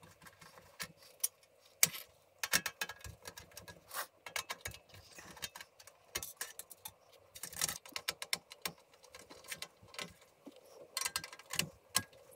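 Screwdriver backing screws out of the sheet-metal base of a Coleman portable butane stove, with the metal screws and panel clicking and rattling. Irregular sharp clicks and taps come in short clusters.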